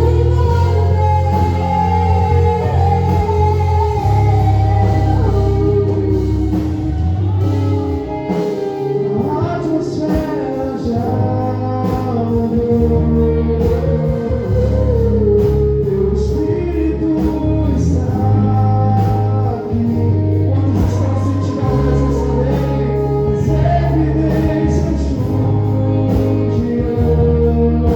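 Live gospel worship song: singing over a band with a steady bass line and an even beat.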